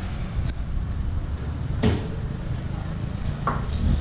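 A motor vehicle running steadily, a low rumble, with two short knocks about half a second and two seconds in.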